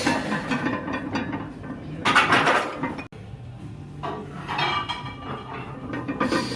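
Metal gym weights clinking and clanking, with two louder ringing clanks about two and four seconds in, like barbell plates shifting on the bar.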